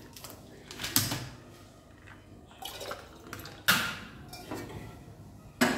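Clacks and handling noise of an aluminium pot being shifted on a gas stove's burner grate as a burner is lit: a light knock about a second in, then two louder sharp clacks, one past the middle and one near the end.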